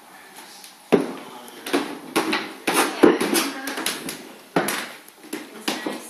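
Footsteps on wooden stairs: a series of sharp knocks from shoes striking the treads, roughly two a second with a pause in the middle.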